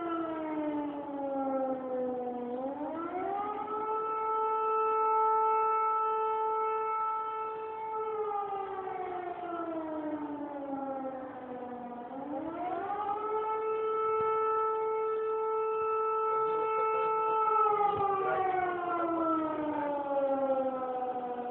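Civil defense warning siren sounding during a scheduled test, its tone wailing in repeating cycles of about ten seconds: it rises quickly over about a second and a half, holds steady for about four seconds, then sinks slowly over about four seconds.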